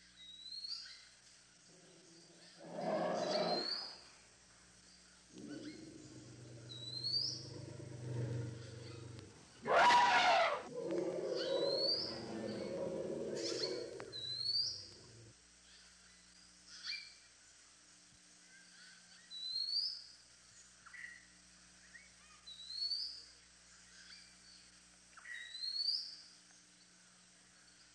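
An elephant calling: a short call about three seconds in, then a longer run of calls from about five to fifteen seconds, the loudest about ten seconds in. Over it, a bird repeats one short rising chirp every couple of seconds.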